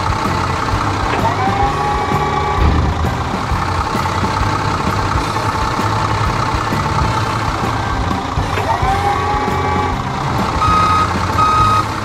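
Backhoe loader's engine running with a steady drone, with a rising whine about a second in and again near the end. A reversing alarm beeps in evenly spaced beeps over the last second or so.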